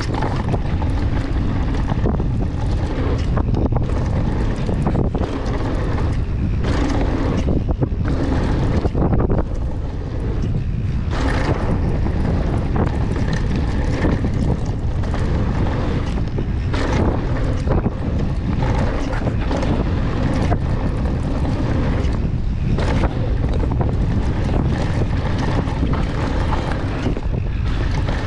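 Wind buffeting the action camera's microphone on a mountain bike ridden fast down a dirt trail, over the rumble of tyres on dirt, with frequent knocks and rattles from the bike jolting over bumps and jumps.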